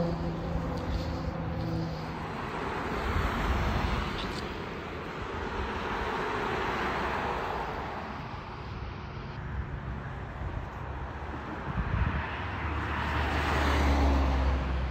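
Road traffic: vehicles passing one after another on the road alongside, each swelling and fading, with a low engine rumble loudest near the end.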